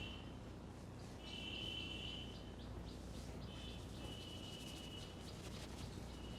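A high, steady animal call about a second long, repeated three times, over faint scattered clicks.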